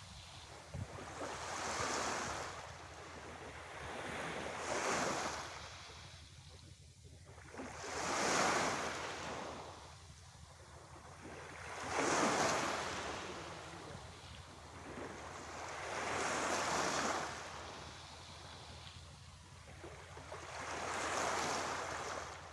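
Sea waves surging in and washing back, swelling and fading about six times, every three to five seconds.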